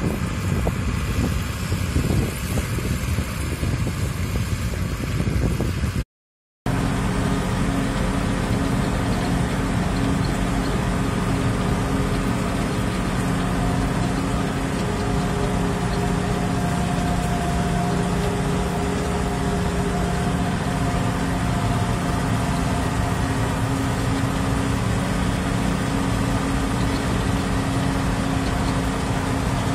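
New Holland 8160 tractor's six-cylinder diesel pulling a round baler through silage. It is heard first from out in the field, then after a short break from inside the tractor cab as a steady, even engine drone under working load.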